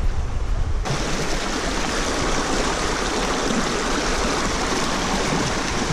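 Small river rushing over rocks in a shallow cascade, a steady loud rush of water that comes in suddenly about a second in. Before it, a low wind rumble on the microphone.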